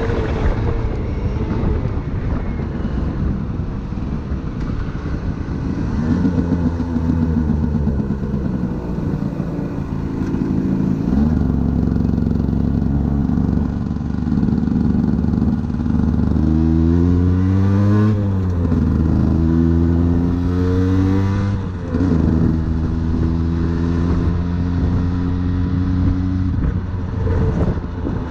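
Aprilia 50cc motorcycle engine running under way. About two-thirds of the way through it revs up twice in rising sweeps, and between them it drops back as at a gear change. It then settles to a steady pitch.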